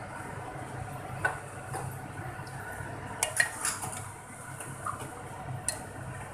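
Steel ladle stirring thick curry masala in a metal cooking pot, scraping and clinking against the pot's sides and bottom, with a few sharp clinks about a second in and a cluster around three seconds in. The stirring keeps the masala from sticking while it fries.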